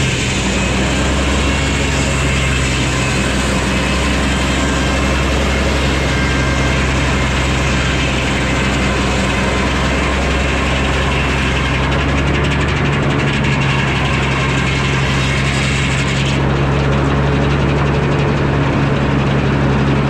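Engine-driven Frick sawmill running with a steady engine drone, its circular blade cutting through a pine log; the higher sound of the cut stops about 16 seconds in, leaving the engine running alone.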